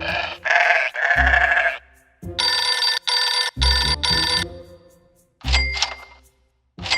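Cartoon background music: a run of short, clipped chords over deep bass notes, several phrases separated by brief gaps.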